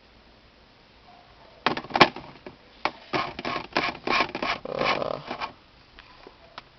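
Clicks, scrapes and light rattles of a small metal air-freshener tin being handled and set down in a car's centre console, with one sharp click about two seconds in.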